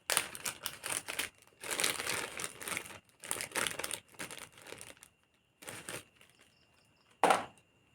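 Crinkling and rustling of packaging in irregular bursts as a new replacement amplifier IC is taken out. There is a short, sharp rustle near the end.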